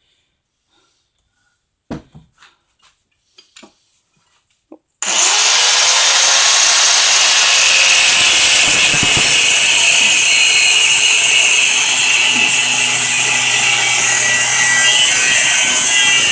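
A few light clicks and knocks, then about five seconds in a power tool starts abruptly and runs steadily as a loud, hissing cutting noise.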